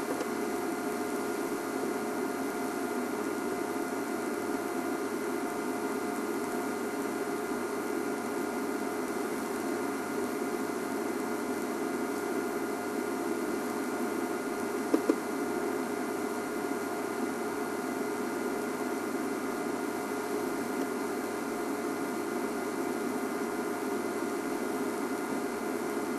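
Steady hiss with a low hum and a few faint steady tones underneath, unchanging throughout; two faint clicks about fifteen seconds in.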